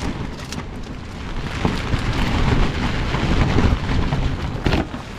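Strong wind gusting against a tent, the fabric flapping and rumbling with a few sharp snaps. A heavier gust builds about a second and a half in and drops away near the end.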